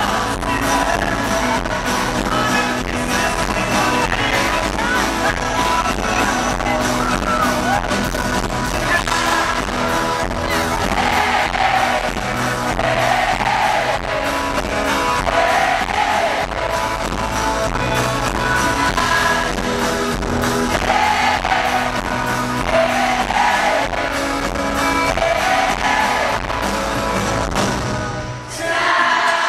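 Pop-rock band playing live with a male lead singer over bass guitar and drums, heard from the audience in a large hall. Near the end the music drops out briefly and the crowd starts cheering.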